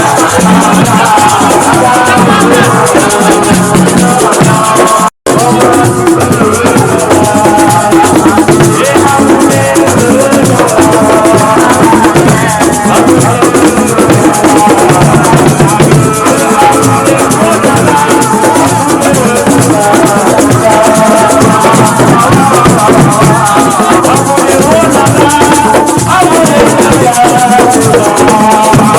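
Loud music with drums and rattling shakers, cut by a brief dropout about five seconds in.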